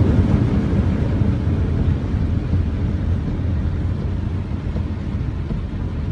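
Steady low rumble of a car in motion, heard from inside the cabin: engine and tyre noise on a wet road.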